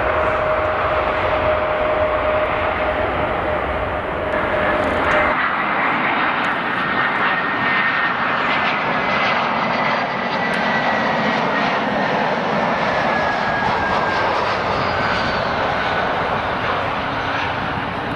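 A Boeing 747 freighter's jet engines run with a deep roar and a steady hum as it rolls out on a wet runway. About five seconds in, the sound cuts to an Airbus A320-family airliner's jet engines on final approach: a steady roar with a high whine that slowly falls in pitch.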